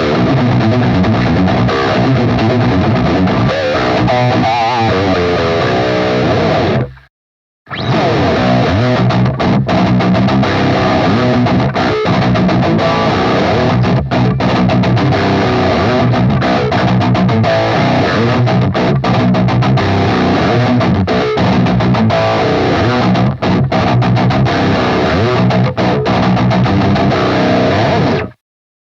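Seven-string fanned-fret electric guitar, the gfc FHL-700FM, playing heavy riffs through distortion. It stops dead for under a second about seven seconds in, then a second riff starts and runs until it cuts off just before the end.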